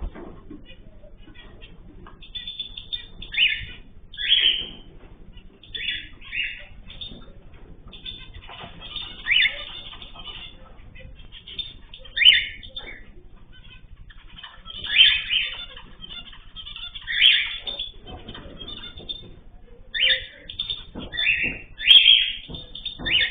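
Caged pet birds, a mix of finches, canaries and cockatiels, giving short chirping calls every second or two, with a busier run of calls near the end.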